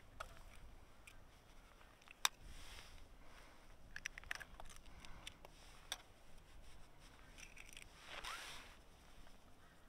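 Eggs being cracked with a small knife and broken into a camping pan: a sharp tap about two seconds in, a cluster of small cracks and clicks around four seconds, and a short wet rush near eight seconds as the egg drops out of its shell.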